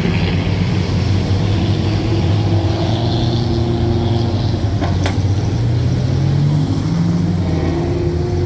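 Road traffic: several car engines running in slow, congested traffic, a steady low engine hum whose pitch drifts slowly as cars creep forward and pull away. A brief click about five seconds in.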